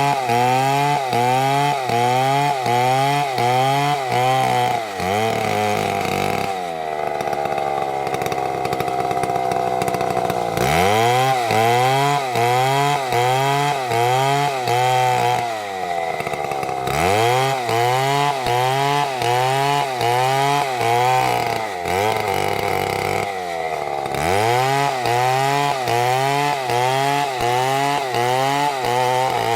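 Two-stroke chainsaw cutting through a dead palm trunk, its engine speed rising and falling about twice a second under load. It drops back and runs at a steadier high speed for a few seconds near the middle before the pulsing resumes.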